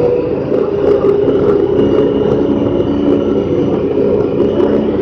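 Honda Pioneer 1000-5 side-by-side's parallel-twin engine running steadily as it drives along a dirt trail, heard from inside the cab.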